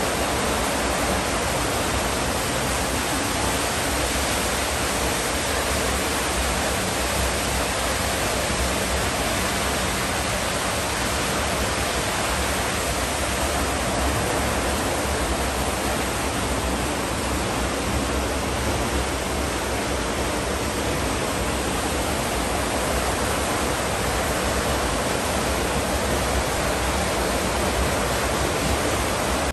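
Water curtain pouring from a wall ledge into an indoor swimming pool: a steady, unbroken rush of falling water.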